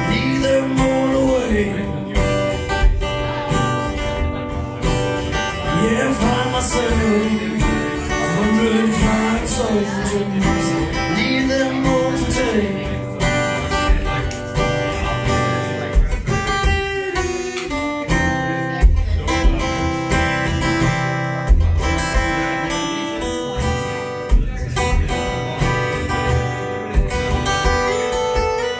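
Steel-string acoustic guitar strummed live, with a man's voice holding and sliding through long wordless notes over it for roughly the first half; after that the guitar carries on alone.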